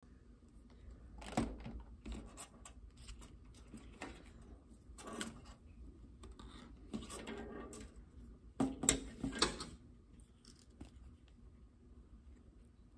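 A sheet of paper being handled and moved on a table: rustling with scattered scrapes and knocks, loudest about a second and a half in and again around nine seconds, then dying down.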